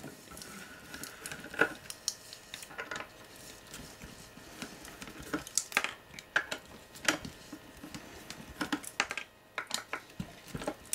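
Screwdriver working the small screws out around a connector on a metal chassis: scattered light metallic clicks and taps of the blade and screws.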